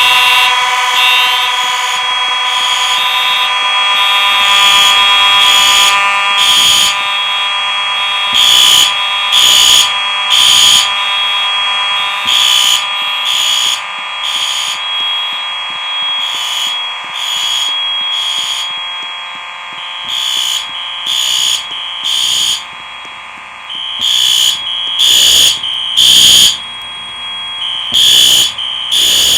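Several fire alarm horns sounding together during a system test. One set holds a steady tone while another pulses in short bursts about a second apart, in groups of about three.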